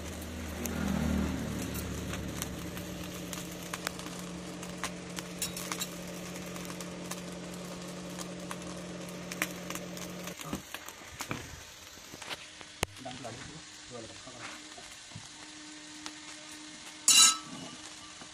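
Coal forge fire crackling, with the forge's air blower humming steadily until it cuts off abruptly about ten seconds in. After that come scattered light clinks of tongs and iron, and a loud metallic clank near the end as the red-hot block is handled.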